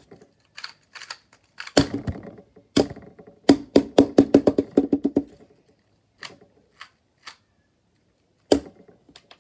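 A 2x2 speed cube being turned fast: scattered knocks and clicks, then a quick run of about seven clicking layer turns a second, and a single sharp knock near the end.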